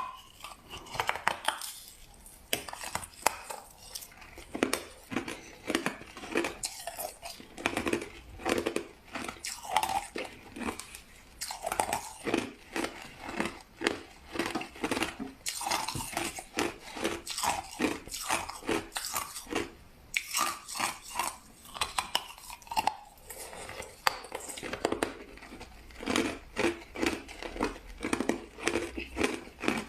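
Crushed ice being bitten and chewed: quick runs of sharp crunches with short pauses between mouthfuls.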